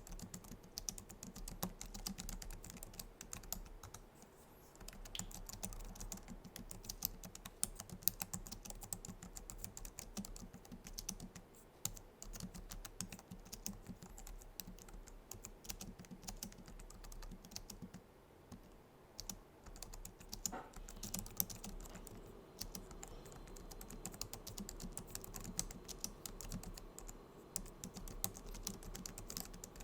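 Typing on a Logitech MX Keys keyboard: a steady run of soft, quick key clicks from its low-profile scissor-switch keys, with short pauses now and then.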